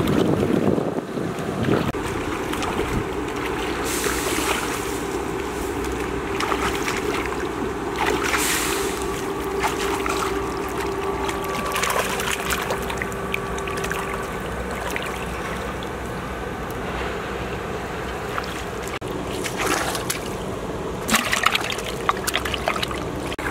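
Hands splashing and sloshing in shallow muddy water, with a few sharper splashes now and then over a steady outdoor background.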